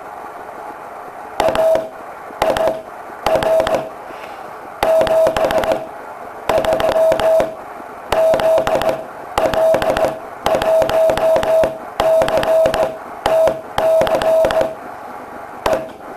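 Morse code sent on a straight key: a steady mid-pitched beep switched on and off in dots and dashes, grouped into letters with short pauses between them. Each keying comes with a sharp click.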